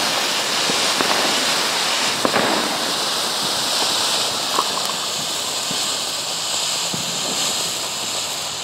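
A row of Funke gold fountains (ground fountain fireworks) hissing steadily as they spray sparks, with a few small crackles, slowly getting quieter toward the end.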